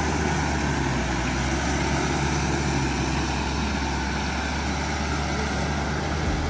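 A vehicle engine running at a steady speed: a low, even drone that holds its pitch.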